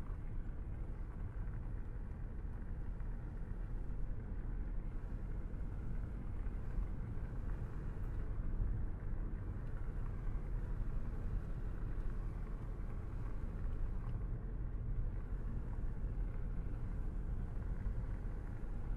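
A car driving on a road: a steady low rumble of tyre, road and engine noise.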